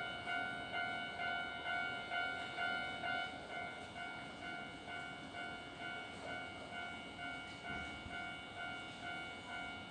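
Railroad level-crossing alarm ringing: a repeating ding of several stacked tones, about twice a second, warning that a train is approaching.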